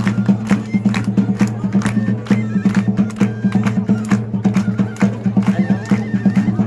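Traditional Moroccan folk music played live: fast, even percussion strokes, several a second, over a steady low drone, with a few short held melodic notes above.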